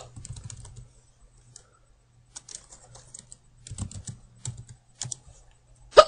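Computer keyboard typing in short bursts of quick key clicks with pauses between them, and a sharp hiccup right at the very end.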